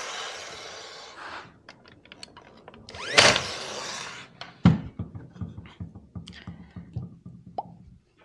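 Battery-powered nailer firing a nail about three seconds in: a sharp crack with the rising whir of its motor and a short trailing hiss, with the fading tail of an earlier shot in the first second. Then a run of short wooden knocks and thumps as the nailer and the wooden pieces are set down on the workbench.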